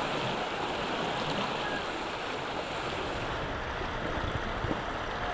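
Steady rushing of river whitewater rapids, with the hiss a little duller from about three and a half seconds in.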